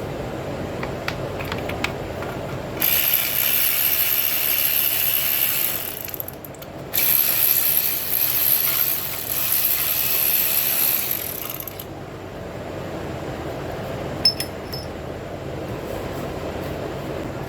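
Mechanic's tool work on a car's exhaust against a steady fan, with a few light ratchet-like clicks, then two long loud hisses, one of about three seconds and one of about five, and a single sharp click near the end.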